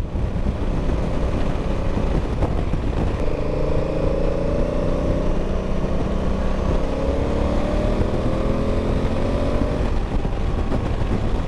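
Honda Africa Twin CRF1000 adventure motorcycle's engine running at highway speed under wind noise. From about three seconds in, its note climbs slowly as the bike gathers speed, then fades back into the rumble near the end.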